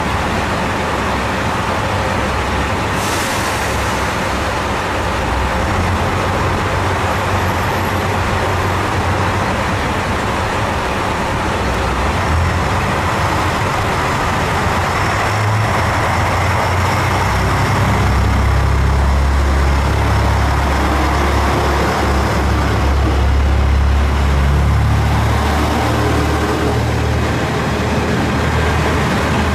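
Diesel railcar engines running at a station platform: a steady low rumble that grows deeper and louder about halfway through as a diesel train moves off.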